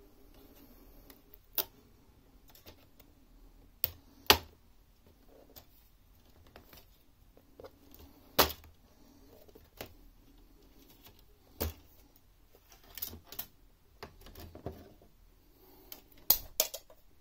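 Scattered sharp plastic clicks and taps, about a dozen at irregular intervals, from a laptop's plastic chassis cover being unclipped and lifted off by hand. The loudest come about four and eight seconds in, with a quick cluster near the end.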